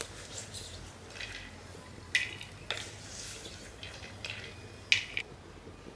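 A wooden slotted ladle scraping and knocking against a clay pot and clay plate as fried asafoetida lumps are scooped out of hot oil. A handful of short sharp knocks and scrapes, the loudest just before five seconds in.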